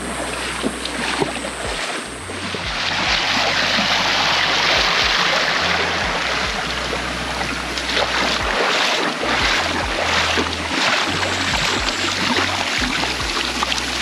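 Stream water rushing steadily down a channel, an even hiss that swells about three seconds in, with a low rumble of wind on the microphone underneath.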